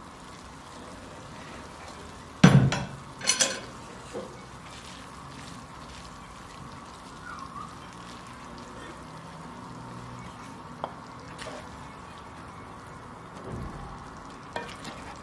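A glass pan lid set down with two loud clanks about two and a half seconds in. This is followed by a wooden spatula stirring and scraping a thick liver and vegetable stew in a nonstick pan, with a few light knocks as portions are spooned onto a plate near the end.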